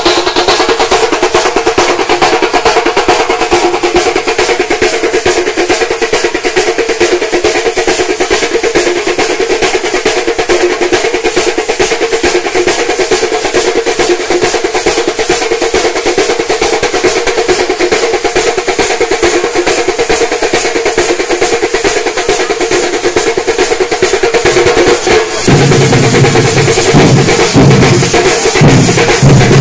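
A street percussion band of many stick-played drums, with steel pots being struck, plays a fast, dense rhythm. About four seconds from the end, deeper and louder drum strokes come in.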